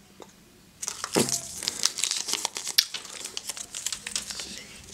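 Kinder Joy egg wrappings (foil seals and paper leaflets) crinkling as they are handled, starting about a second in as a run of quick, irregular crackles.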